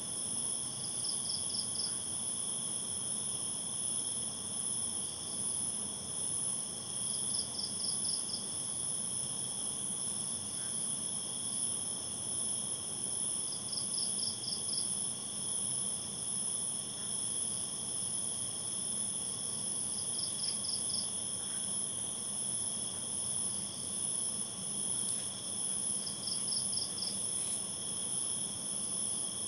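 Night insect chorus, crickets: several high, steady, unbroken trills, with a short pulsed chirp repeating about every six seconds.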